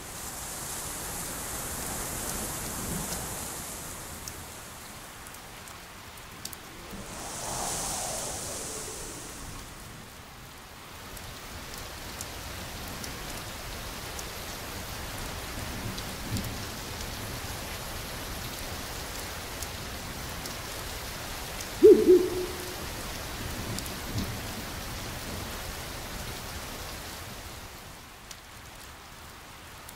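Steady rain ambience with low rumbles of thunder, part of a night-forest horror soundscape. About three-quarters of the way through comes one sudden short sound, the loudest moment, with a brief ringing tail.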